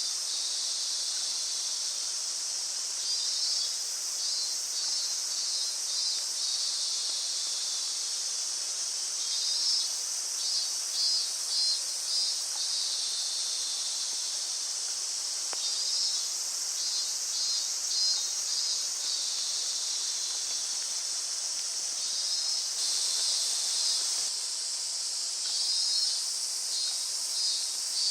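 A steady, high-pitched chorus of insects chirring, with bouts of short, rapidly repeated pulsing calls rising out of it every few seconds.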